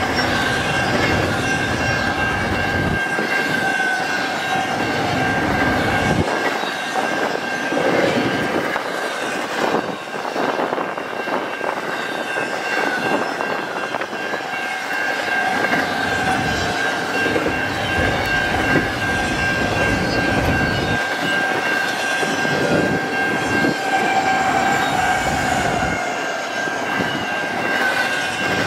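Cars of a CN intermodal freight train rolling past a level crossing, wheels clattering over the rail joints, with a steady high-pitched ringing tone throughout.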